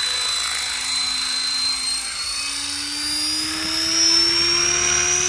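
KDS 550 radio-controlled helicopter lifting off and climbing: a high electric motor whine over rotor noise, rising in pitch from about two seconds in.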